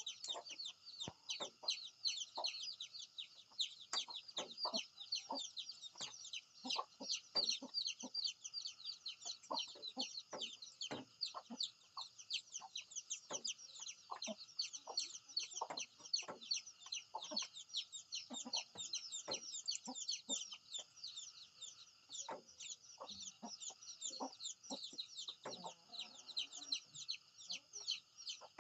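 Chickens clucking in short, scattered calls over a constant high-pitched chirping.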